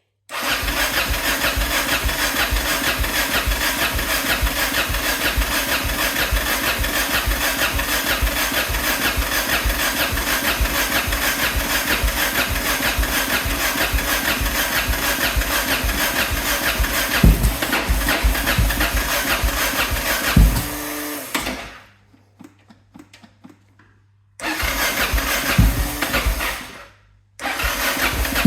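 Yamaha motorcycle engine being cranked on its electric starter with the choke on, turning over in a long, even churn without catching, because the carburetor has no fuel in it yet. The cranking stops suddenly about 21 seconds in, and after a pause come two shorter bursts of cranking.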